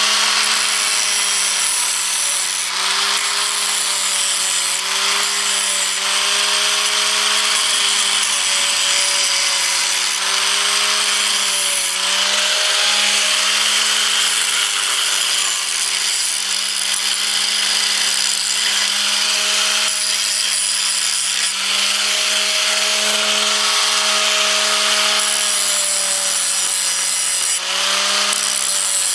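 Electric grinder running continuously against a galvanized steel harrow link, its motor pitch wavering slightly as it is pressed into the metal. It is grinding off the zinc coating so the piece can be welded, and narrowing the link so it fits through the harrow's eye.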